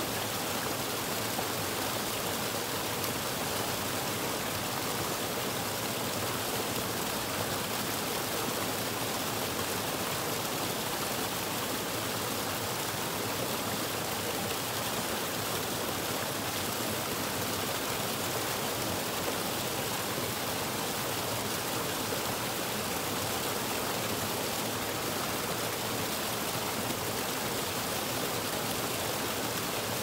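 Small waterfall on a stream pouring over rocks into a frothing pool: a steady, unbroken rush of water.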